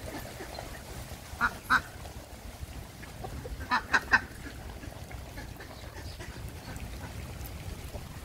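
Waterfowl calling: two short quacking calls about a second and a half in, then three more in quick succession around four seconds in, over a steady low background noise.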